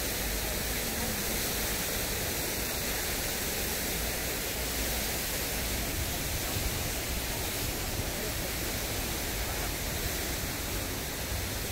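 Fountain water splashing steadily: several small jets falling onto rocks and into a shallow stone channel, a continuous even rush.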